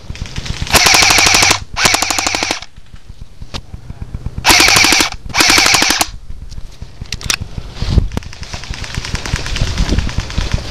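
Battery-powered airsoft gun firing on full auto: four short bursts of rapid, closely spaced shots in two pairs, with leaves rustling between them.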